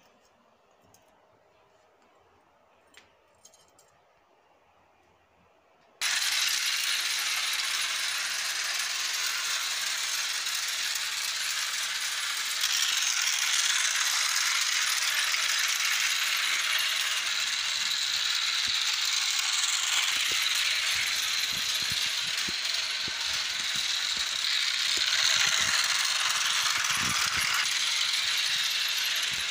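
Toy train running on its track: a steady whirring, rattling noise of the motor, gears and wheels that starts suddenly about six seconds in, after near silence with a few faint clicks.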